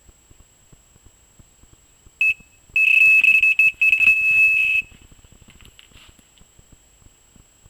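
Electronic carp bite alarm sounding: one short high beep, then about a second later a fast run of beeps, some running together into a continuous tone, for about two seconds. It signals the line being pulled through the alarm's sensor. Faint handling rustles and clicks follow.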